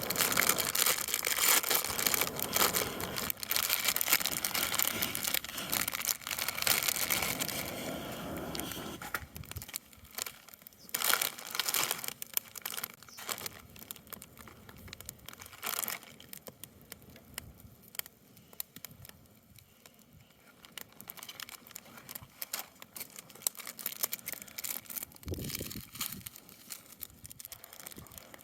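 Crinkling, rustling handling noise for about the first nine seconds, then quieter, scattered light clicks and crackles with a few sharper snaps.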